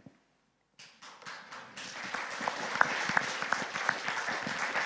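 Audience applauding. The applause starts about a second in, after a brief silent gap, and swells to a steady clapping.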